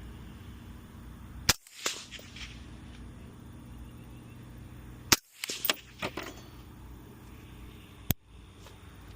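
Three suppressed rifle shots from a 16-inch 5.56 rifle fitted with a SilencerCo Scythe Ti suppressor, about three seconds apart, each followed by a short echo.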